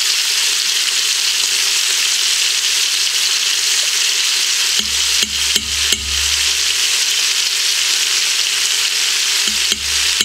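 Chicken thighs and sliced onion sizzling steadily in hot oil in an Instant Pot's stainless inner pot on sauté, as they brown. About five seconds in and again near the end come a few light knocks as a spoon adds minced garlic.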